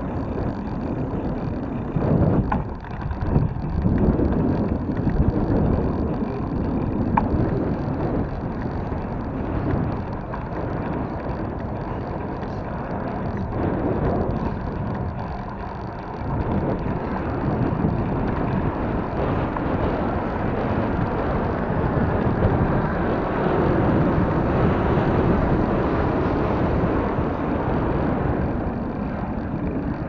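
Wind buffeting the microphone of a camera on a moving bicycle, a low rumbling noise that swells and eases as the bike rolls along the pavement.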